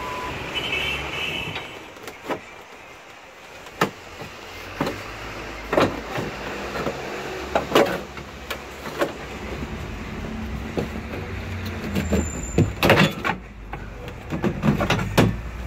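Irregular knocks, clicks and clanks of hands working the metal support straps and plastic evaporator housing in a bus ceiling, over a low steady rumble.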